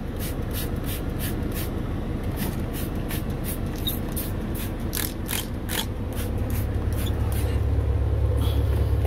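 Hand trigger spray bottle squirting cleaner again and again, about two squirts a second, thinning out after about six seconds. Under it runs the steady low hum of the semi truck's idling engine, which gets louder near the end.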